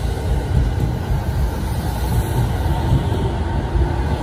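Electric commuter train moving slowly along the platform: a steady rumble of wheels and running gear, with a motor whine coming in near the end.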